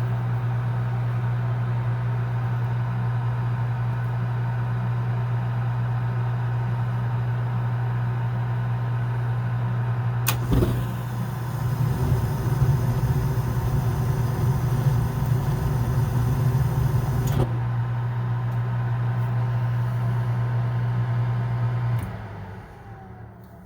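Gas furnace trying to fire. The draft inducer motor hums steadily. About ten seconds in there is a click, and the burners light with a rushing noise, then cut off abruptly about seven seconds later. Near the end the motor shuts off and winds down. The burners drop out because the scorched, carbon-fouled flame sensor fails to sense the flame.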